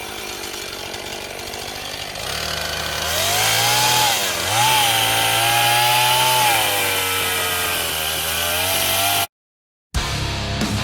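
Gas chainsaw cutting into an oak stump: the engine revs up and its pitch sags and recovers as the chain bites into the wood. The sound cuts off abruptly near the end.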